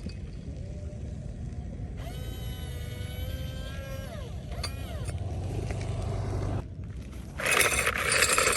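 Heavy construction machinery running with a steady low diesel rumble; a whine sets in about two seconds in and falls away in pitch, and a loud hiss comes near the end.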